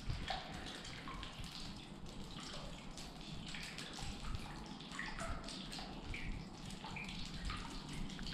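Water dripping from the roof of a disused railway tunnel into puddles on its floor: many irregular, high plinks over a low rumble.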